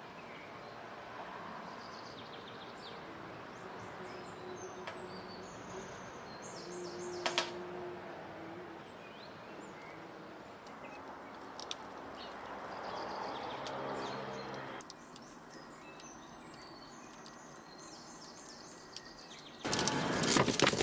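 Outdoor ambience: a steady background hiss with scattered short bird chirps. About a second before the end, loud handling noise starts as a large raw slab of beef ribs is lifted and laid onto a metal tray.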